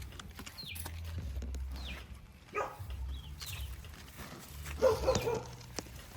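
Animal calls: several short, high calls falling in pitch, with two louder cries about two and a half and five seconds in.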